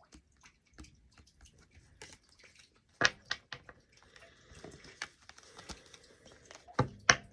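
Tarot cards being handled on a table: scattered light clicks and taps, with sharper slaps about three seconds in and again near the end.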